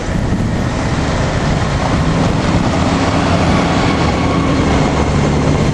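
A vehicle engine running with a steady low hum that grows a little firmer partway through, under wind buffeting the microphone.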